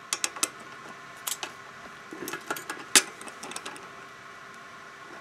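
Tongue-and-groove pliers clicking and clinking, metal on metal, as their adjustable jaws are set and clamped around a stripped hex bolt head. The clicks come irregularly, the loudest about three seconds in.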